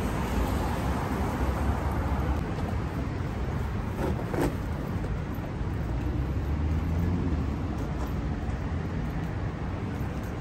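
City street traffic: cars on the road alongside running past in a steady low rumble, with one brief sharper sound about four seconds in.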